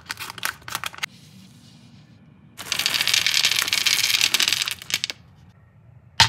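Scissors snip through the top of a plastic candy bag with crinkling clicks. About two and a half seconds in, jelly beans pour out of the bag into a wooden platter compartment in a dense rattle lasting about two seconds. A sharp snap comes right at the end.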